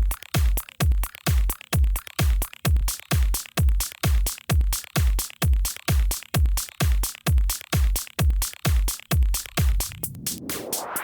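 Electronic dance music with a steady kick drum about twice a second. About ten seconds in the kick drops out and a rising sweep builds.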